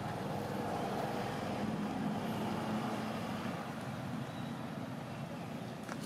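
Steady drone of a motor vehicle's engine running, gradually fading a little over the last few seconds.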